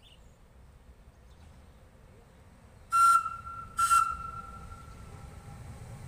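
Two short, loud blasts of a vintage electric railcar's warning horn, a little under a second apart, its note lingering faintly after the second. A low rumble from the approaching train grows toward the end.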